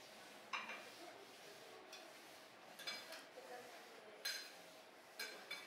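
Cutlery clinking against china: a handful of light, ringing clinks a second or more apart.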